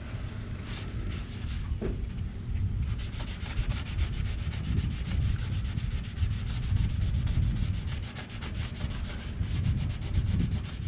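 Rubbing compound being worked over a car fender's painted surface in quick back-and-forth strokes, the rapid rhythmic rubbing starting about three seconds in. It is polishing out paint transfer and scuff marks rubbed into the paint.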